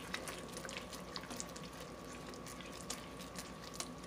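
Hot sugar candy syrup in an aluminium pot being stirred with a silicone spatula: a faint hiss with small, irregular crackles and pops from the bubbling syrup.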